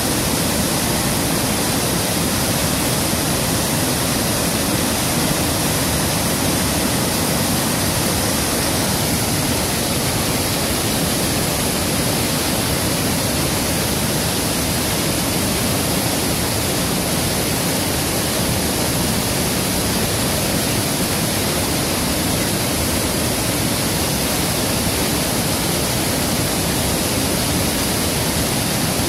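Rushing river water, a steady even hiss with no breaks.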